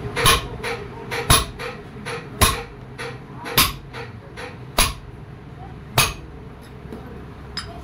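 A hammer striking steel on a tractor's clutch and brake pedal assembly: six hard blows about a second apart, with lighter taps between. The blows are working on the pedal's pivot, where the worn bush is being knocked out.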